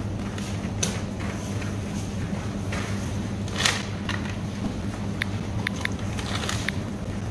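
Supermarket ambience: a steady low hum with scattered rustling and clicks, the loudest rustle a little over three seconds in, and several short high beeps in the second half.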